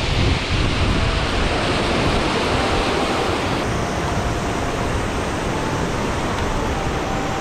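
Steady rush of river water spilling over a low concrete weir and through rapids. About halfway through it changes to the lighter, less hissy rush of a shallow stony riffle.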